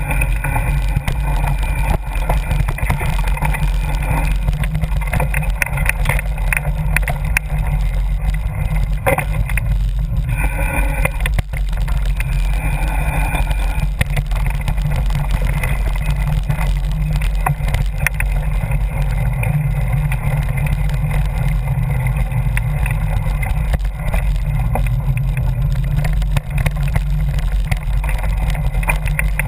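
Riding noise from a camera mounted on a bike rolling fast down a dirt trail: steady wind rumble on the microphone, with the tyres and frame rattling over the bumpy ground.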